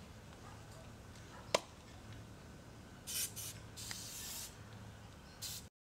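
A single sharp click about a second and a half in, then three short hissing bursts, the middle one the longest, before the sound cuts off suddenly.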